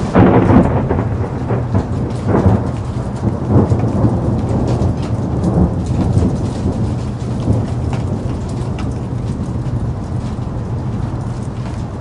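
Rain falling with rolling thunder: a loud rumble starts at once and swells again about two, three and a half and five and a half seconds in, then dies down into steady rain with scattered drop ticks.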